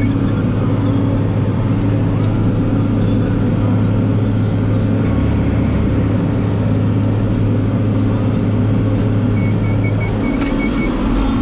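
Inside a tractor cab: the engine running steadily under the steady noise of hard rain on the cab. Near the end a quick series of about six short electronic beeps sounds from the cab.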